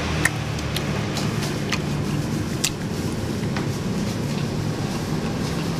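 Mouth sounds of chewing fresh pineapple rujak: a handful of short, sharp wet clicks and smacks, scattered irregularly over a steady low background rumble.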